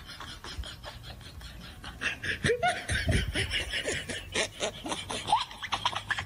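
Laughter that breaks out about two seconds in and runs on in quick, repeated bursts.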